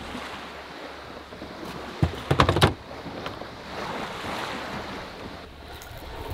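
Small lake waves washing against the shore and a fishing boat's hull in a steady rush. About two seconds in comes a quick cluster of knocks and clatters, the loudest sound here, as things are handled in the boat.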